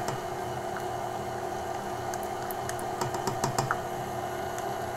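KitchenAid Classic stand mixer running steadily, its flat beater churning a runny pie filling in a stainless steel bowl. Light clicks and taps of a utensil scraping molasses into the bowl come over the top, most of them about halfway through.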